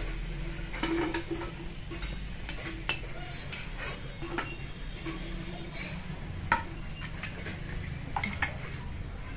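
A perforated metal slotted spoon clinking and scraping against a steel karahi and a ceramic plate as fried samosas are lifted out of the oil and slid off, in scattered light clicks and knocks. A few short high squeaks and a steady low hum run underneath.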